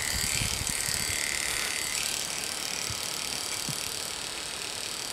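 Electric dog clipper running steadily with a buzz while it shaves the short hair on a Scottish terrier's ear.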